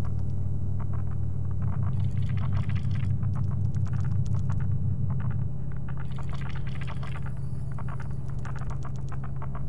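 Electronic music made entirely from one sample of a metal ring scraped across a radiator: a sustained low drone chord that changes about halfway through, under recurring bursts of scratchy, crackling clicks.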